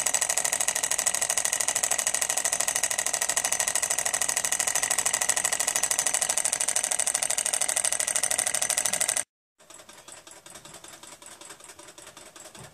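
Small alcohol-fired model Stirling engine running, its piston and flywheel linkage clattering in a rapid, even rhythm. About nine seconds in it cuts off sharply, and a much fainter ticking of the same kind carries on.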